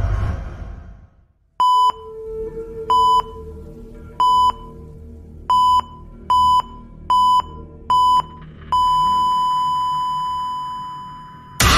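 Electronic beeps at one steady pitch: seven short beeps that come faster toward the end, then one long unbroken beep that slowly fades, over a low rumble, in the pattern of a heart-monitor flatline sound effect. A swell of noise dies away in the first second, and a loud burst of noise cuts in at the very end.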